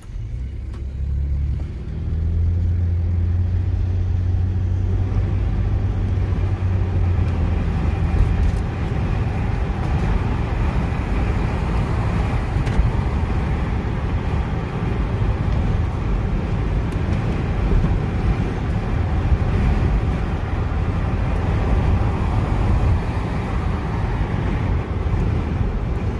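Car driving, heard from inside the cabin. The sound rises from quiet in the first two seconds into a low steady engine drone that holds until about eight seconds in, then a steady rush of tyre and road noise continues.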